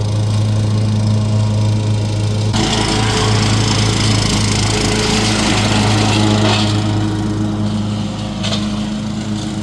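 Walk-behind lawn mower running steadily. About two and a half seconds in, a harsh rushing hiss joins the engine hum for about four seconds, then drops away, with a short burst of it again near the end.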